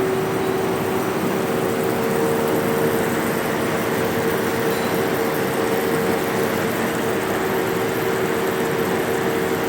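Large Lufkin extruder gearbox running steadily on a test stand, an even drone with a steady whine from the gearing; it runs smoothly, with no vibration or overheating.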